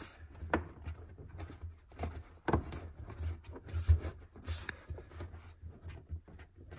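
Hands pressing and working a rubber grommet back into a car's sheet-metal floor pan above the fuel pump: irregular rubbing with scattered soft knocks and clicks.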